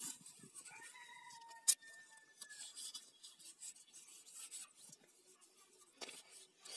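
Paper masking tape being pulled off the roll and rubbed down around a spirit level strapped to a hammer drill: quiet, scratchy rubbing and peeling, with one sharp click a bit under two seconds in.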